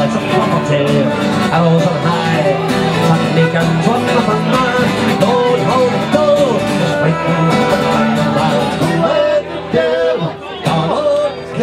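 Lively folk tune played on fiddle and acoustic guitar, the fiddle carrying a wavering melody over strummed chords, with a brief drop in level near the end.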